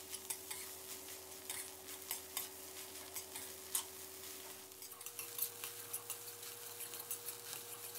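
Metal spatula scraping and clicking against a metal wok as fried rice with Chinese kale is stir-fried, with faint sizzling. The clicks come quickly and irregularly.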